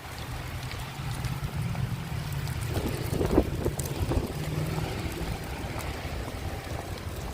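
Strong wind buffeting a GoPro's microphone: a low, steady rumble with a few sharper thumps about three seconds in.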